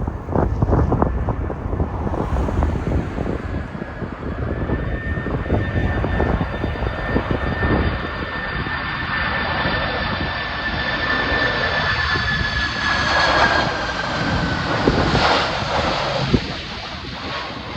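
Boeing 767 airliner on landing approach, its jet engines giving a high whine that comes in a few seconds in, grows louder, then drops slightly in pitch and fades as the plane passes. Strong gusting wind buffets the microphone throughout.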